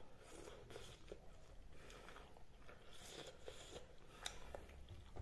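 Faint chewing and mouth sounds of a man eating rice and chicken by hand, with small scattered clicks.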